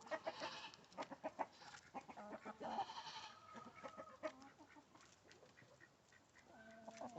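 Backyard hens clucking softly with short calls, over many quick sharp taps of beaks pecking at food.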